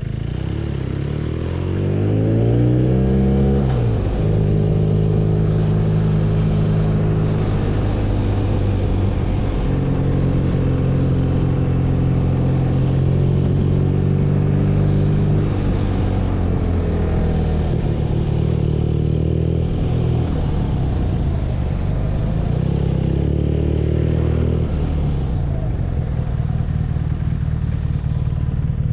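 BMW R nineT's air/oil-cooled boxer twin under way. The revs climb about two seconds in, then hold a steady drone, then ease off around the middle and run on at lower revs.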